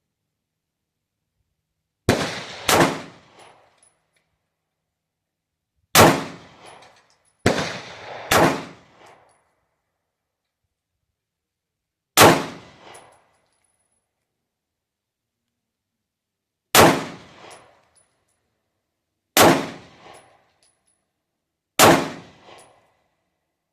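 Nine single gunshots from a 3D-printed firearm, fired at an uneven pace: two close together about two seconds in, another quick pair around eight seconds, and the rest several seconds apart, each shot dying away over about a second.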